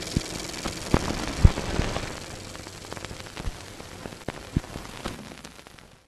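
Glitchy electronic static crackle with a few sharp low hits, the loudest about one and a half seconds in, dying away near the end.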